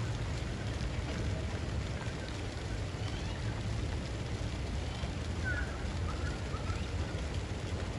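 Steady hiss of a pond fountain's water jet spraying onto the water, over a low rumble. A few short bird chirps come a little past halfway.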